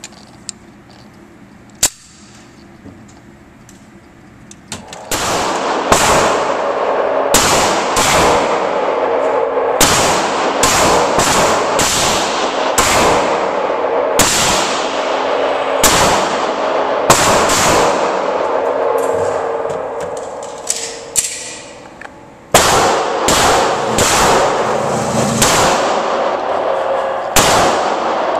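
Repeated handgun shots in an indoor shooting range, strongly echoing. After a quiet start they begin about five seconds in, roughly one a second, break off briefly about 22 seconds in, then carry on.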